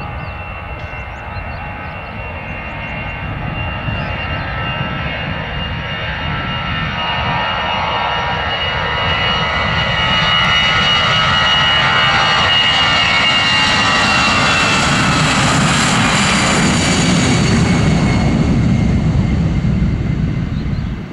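Jet engines of an easyJet Airbus A320-family airliner moving along the runway, growing louder as it comes closer and passes, with a whine that falls in pitch as it goes by and a deep rumble near the end.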